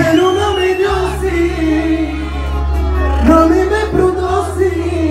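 Live music: a male singer sings held, wavering notes into a hand microphone over a steady deep bass line.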